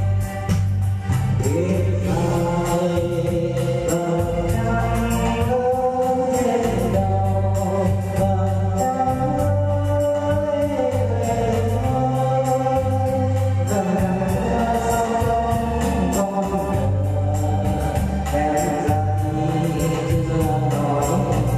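A song sung in Vietnamese to electronic organ (keyboard) accompaniment, with held notes over a steady repeating bass line.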